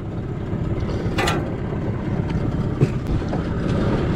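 Small outboard motor running at idle on a dinghy's stern, a steady low rumble with wind on the microphone, and a few light knocks and rattles, the sharpest near the middle.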